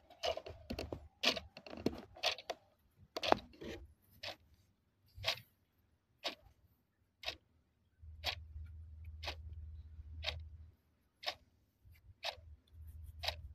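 Clock-like ticking sound effect: a quick run of clicks over the first few seconds, then a single sharp tick about once a second. A low hum sits under the ticks in the second half.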